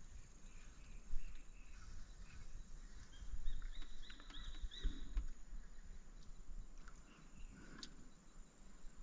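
Faint riverside ambience: a steady high insect drone, with a short run of bird chirps about three to four seconds in. There is a sharp click near the end.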